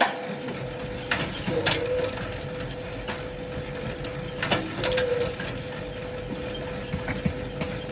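3-in-1 bamboo satay-skewer making machine running with a steady motor hum, with sharp cracks a little over a second in and again around four and a half seconds. After each, the hum sags briefly as the motor takes load.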